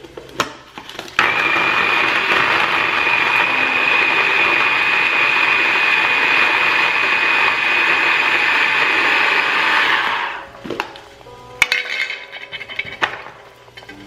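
Small electric food chopper running steadily with a high whine as it chops carrots. It starts about a second in and stops about ten seconds in. Clicks and knocks of the plastic bowl and lid being handled come before and after.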